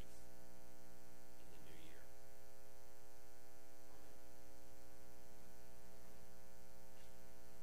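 Steady electrical mains hum with a stack of harmonics, a constant buzz in the recording, with a faint brief sound about two seconds in.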